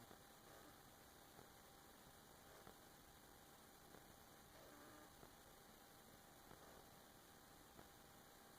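Near silence: a faint steady hiss with a thin hum.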